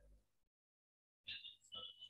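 Near silence: the sound drops to dead quiet, with a few faint short sounds in the last second.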